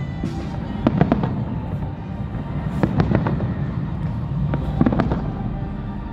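Festive fireworks salute bursting overhead: sharp bangs in pairs, about one pair every two seconds, over a steady low background.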